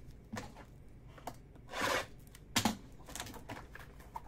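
Cardboard trading-card packaging being handled: scattered light taps and clicks, with a short rustle of cardboard sliding about two seconds in.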